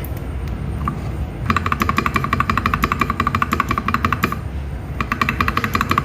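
Spacebar of an Akko 3098B mechanical keyboard with LEOBOG Nimbus linear switches, tapped rapidly and repeatedly in two quick runs with a short pause between, about nine strokes a second.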